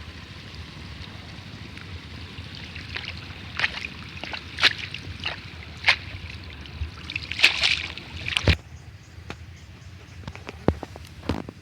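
Water splashing and sloshing in a run of short, sharp bursts over a steady low background, with a few sharp knocks near the end, as water is worked during cast-net fishing.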